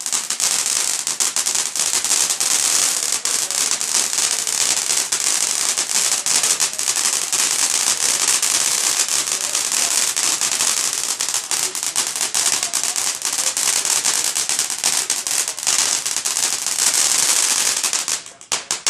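Consumer firework crackling: a rapid, dense stream of small pops over a hiss. It keeps going without a break and dies away to a few scattered pops near the end.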